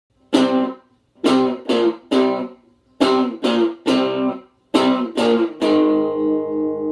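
Electric guitar played through a Fender Frontman 10G practice amp on its distortion setting: about ten short strummed chords in three groups, stopped between groups, with the last chord left ringing near the end.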